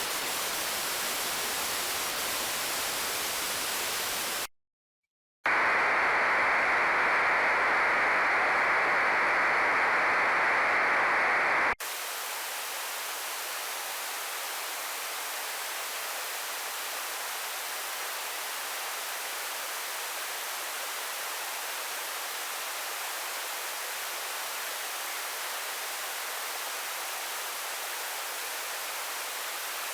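White TV-style static hiss. About four and a half seconds in it cuts out for a second, comes back louder and duller for about six seconds, then switches abruptly to a thinner, quieter hiss for the rest.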